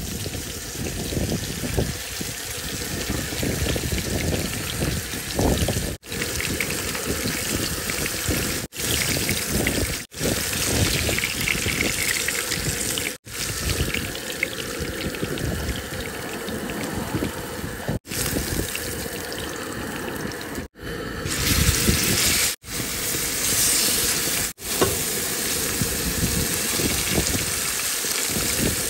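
Fish fillets sizzling and spitting in hot oil in a frying pan on a camp stove, over a low wind rumble on the microphone. The sizzle breaks off for a moment several times.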